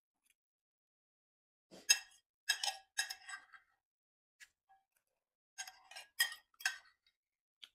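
Metal spoon clinking and scraping against a ceramic plate as the last of the noodles are scooped up. Two runs of quick clinks, one about two seconds in and one around six seconds in.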